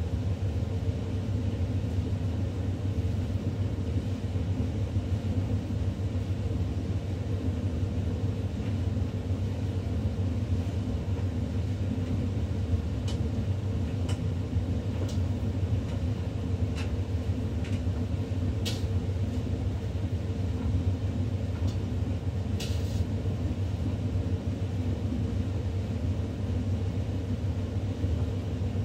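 Faure Electrolux 7 kg tumble dryer running: a steady motor-and-drum hum, with a few light clicks scattered through the middle.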